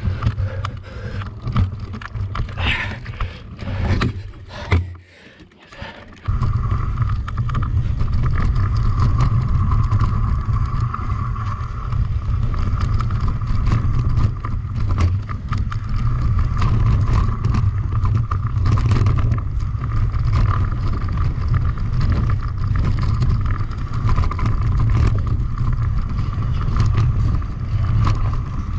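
Riding noise from a mountain bike on a race trail: heavy rumble from wind and vibration on the bike- or rider-mounted camera's microphone, mixed with tyre and drivetrain noise. It falls away briefly about five seconds in, then comes back loud and steady with a constant higher hum over the rumble.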